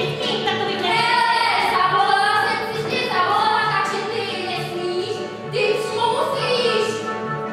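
A song: a woman singing over music with a steady beat.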